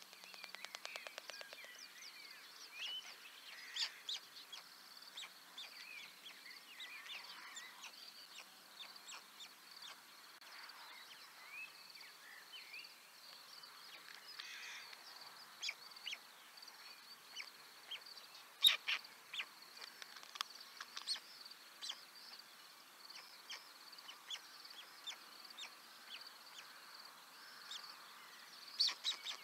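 Many small birds chirping and calling, faint and scattered, with a brief rapid rattle in the first second or so and one sharp click about two-thirds through.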